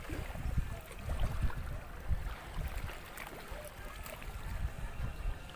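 Seawater lapping against shore rocks, under an uneven low rumble of wind on the microphone.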